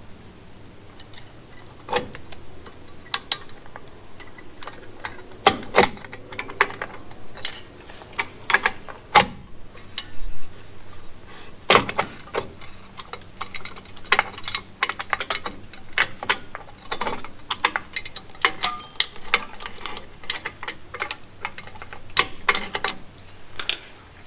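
Irregular metal clicks and scrapes of a drum brake shoe hold-down spring, pin and slotted locking cup being pressed and turned with a hand tool against the backing plate until the cup locks onto the pin.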